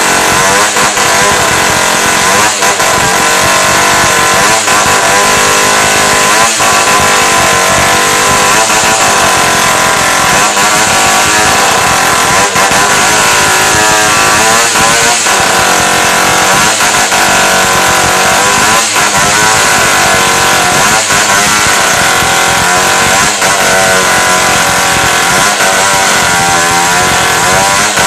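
Two-stroke petrol chainsaw running at high revs while cutting into a log, its pitch dipping and recovering again and again as the chain bites into the wood.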